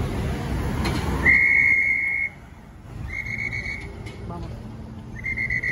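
A whistle blown in three long, steady blasts, the first about a second in. Road traffic rumbles under the first blast and then fades.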